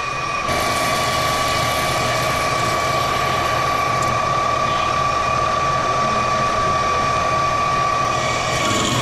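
VFD-driven engine lathe running with a tailstock drill boring into the spinning workpiece. The sound is a steady whine over the machine's hum.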